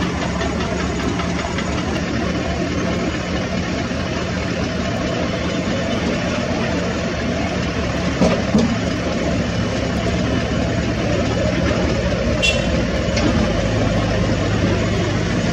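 Heavy diesel engine running steadily, its hum dropping lower about ten seconds in. Two knocks come about eight seconds in, and a brief high squeak about twelve seconds in.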